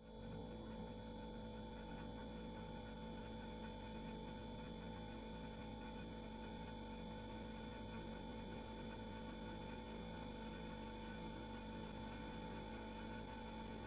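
Refrigerator running: a steady, faint hum with a light hiss and a few constant tones that do not change.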